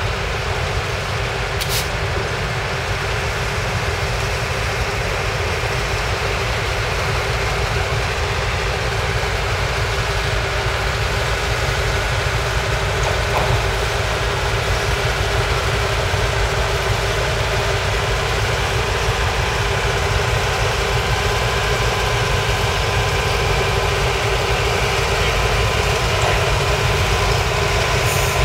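CN diesel-electric locomotives running at low throttle as they move slowly along the track, a steady low engine rumble that grows gradually louder as they draw closer.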